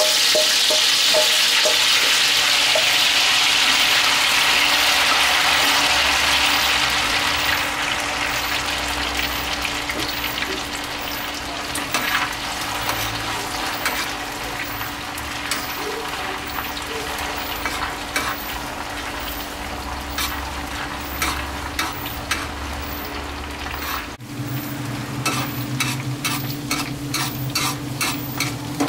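Sliced shallots, tossed in leftover chicken marinade, deep-frying in a wok of hot oil: a strong sizzle as they go in that gradually settles over the first several seconds into softer steady bubbling. A spatula scrapes and clicks against the wok from time to time, more often near the end.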